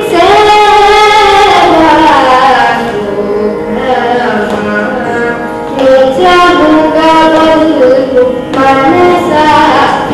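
A girl singing a Carnatic vocal solo, her voice sliding and bending between notes in ornamented phrases, over a steady drone from a small electronic shruti box.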